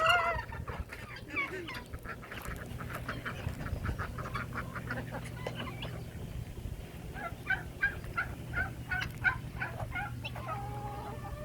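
A flock of barnyard fowl calling while they feed: a loud burst of calls at the start, scattered short calls, then a quick run of short repeated calls about eight seconds in and a longer held call near the end.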